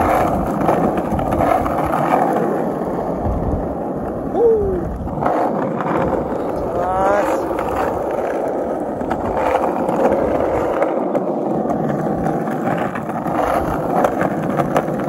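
Skateboard wheels rolling over an asphalt road: a steady rolling noise that carries on without a break.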